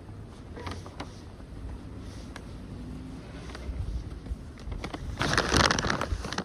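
Storm wind buffeting the microphone with a steady low rumble, broken by a few faint clicks. About five seconds in, a loud rush of noise lasts about a second.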